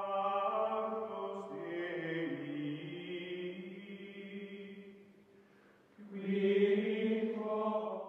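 Music of sustained, choir-like chanting voices holding long chords that shift slowly, fading away about five seconds in; a second, louder chord swells in about six seconds in.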